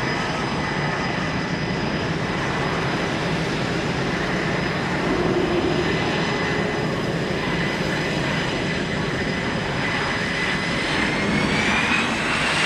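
L-39C Albatross jet trainer's Ivchenko AI-25TL turbofan in flight: a steady turbine whine over jet rush, the whine rising in pitch near the end.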